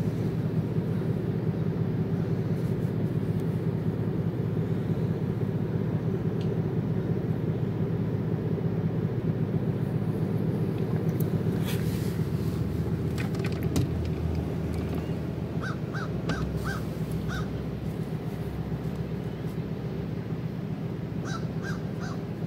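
A steady low hum throughout, with a crow cawing: four short caws about two-thirds of the way through and three more near the end. A few clicks and knocks sound around the middle.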